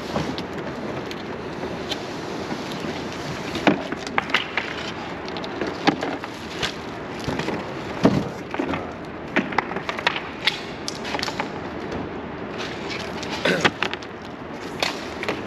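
Unpacking noise: irregular knocks, clatters and rustles of packaging and bike parts being handled, over a steady background hiss.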